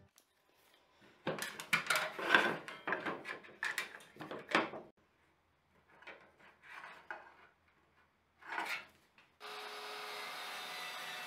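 A wooden folding rule and wood being handled on a table saw's metal top: a cluster of short rubs and knocks for a few seconds, then a few fainter ones. Near the end a table saw motor starts and runs steadily.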